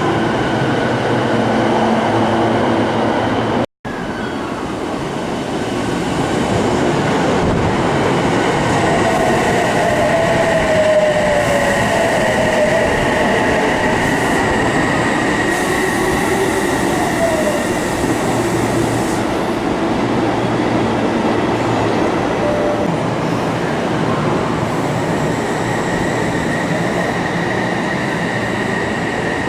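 Odakyu Line electric commuter train running at the platform, with wheel squeal gliding in pitch and a steady high whine over the rolling noise. The sound breaks off for an instant about four seconds in.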